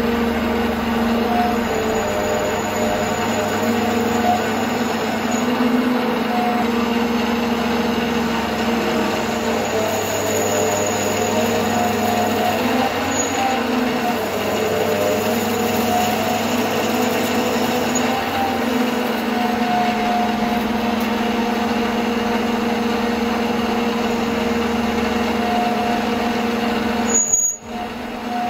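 Bernardo Profi 550 WQV mini metal lathe running under a cut, its spindle drive giving a steady multi-tone whine that wavers slightly as the tool takes metal off the spinning workpiece. The sound drops out briefly near the end.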